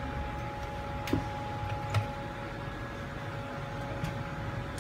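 Steady hum of running workbench equipment with a faint two-note whine. A couple of light clicks or taps come about one and two seconds in.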